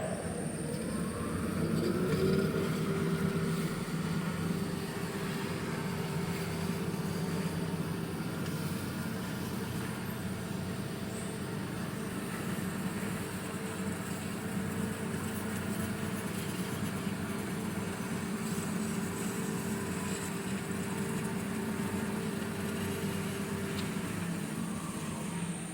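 Baileigh BS-24A automatic bandsaw running: its drive spins up with a rising whine at the start, runs with a steady hum and whine, then winds down with a falling whine near the end.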